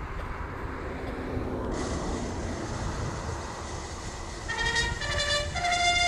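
Wind rumbling on the microphone, then about four and a half seconds in a trumpet begins a ceremonial call of short held notes stepping up and down in pitch.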